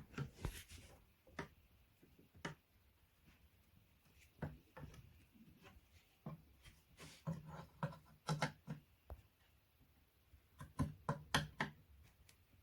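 Scattered light knocks and clicks of flat-pack furniture panels and hardware being handled during assembly, coming in two quick clusters in the second half.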